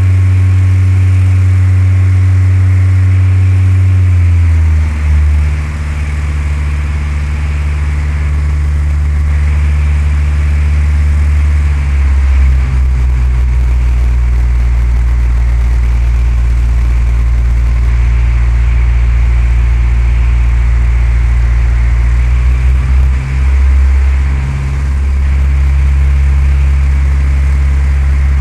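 Cessna 172's piston engine and propeller running with a steady, loud drone. The engine's pitch steps down about four seconds in as the RPM drops, then shifts slightly twice more.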